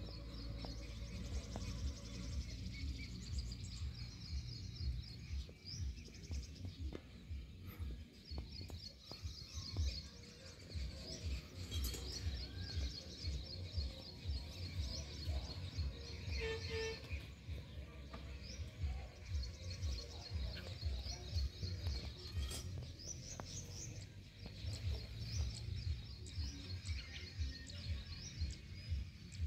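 Outdoor ambience of small birds chirping in bouts of rapid, high, repeated notes every few seconds, over a steady low rumble with small knocks.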